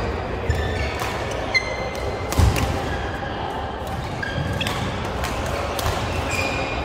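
Badminton rackets striking shuttlecocks in quick irregular clicks across several courts, mixed with brief squeaks of court shoes on the floor and a steady hall din.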